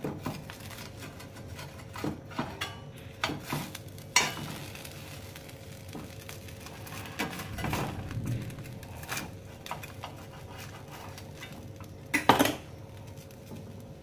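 Metal knife cutting toasted sandwiches on a flat griddle pan, scraping and knocking against the pan in scattered strokes, with a louder knock about four seconds in and a louder cluster near the end.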